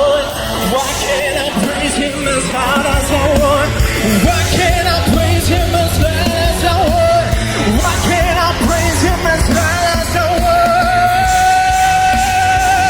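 Worship band playing loudly while a singer carries a wordless vocal line with vibrato, ending on one long held note.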